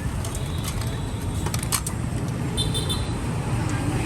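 Steady low rumble of street traffic, with a few light clicks and a short high-pitched tone just past the middle.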